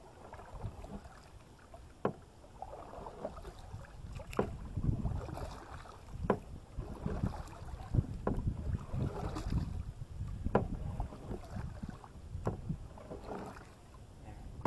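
Canoe paddling: water swishing and washing with each paddle stroke, with sharp knocks roughly every two seconds as the paddle strikes the canoe's side.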